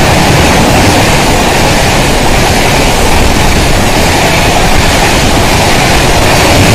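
Indian Railways passenger coaches passing at speed close by, a loud steady rushing noise of wheels running on the rails with no let-up.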